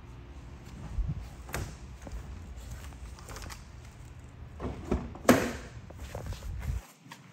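A few scattered knocks and thumps over a low steady rumble, the loudest a sharp knock about five seconds in.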